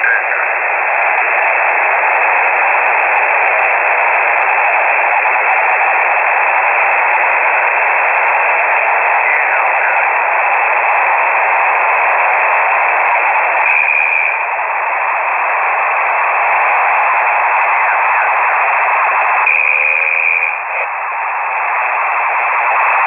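Shortwave single-sideband radio reception through a KiwiSDR receiver: a steady band of static hiss, narrow like a voice channel. About 14 s and 20 s in it changes briefly, with a short high tone and a small dip in level.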